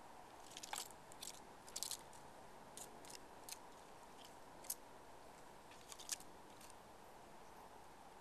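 Flying squirrel making faint, sharp crunchy clicks in irregular clusters, about a dozen over six seconds, over a low steady hiss.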